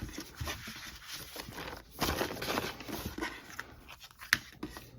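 Packaging rustling and tearing as a packet of Polaroid photo cards is opened and handled, densest about two seconds in, with a single sharp tap a little after four seconds.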